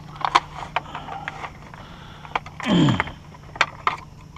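Scattered light clicks and knocks of small objects being handled and set down, with a short sound falling in pitch about three seconds in.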